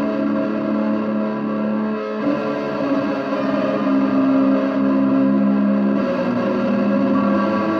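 Electric guitar run through a chain of effects pedals, including a Walrus Audio Melee, playing a sustained, layered ambient drone. The held notes change to new ones about two seconds in and again around six seconds.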